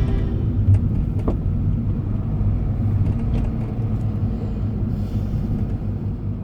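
Low, steady rumble that fades gradually toward the end, with a few faint clicks.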